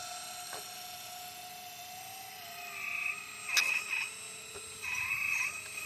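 Scale RC hydraulic excavator's pump and electric motors whining steadily, with two brief higher-pitched whines about three and five seconds in and a sharp click between them.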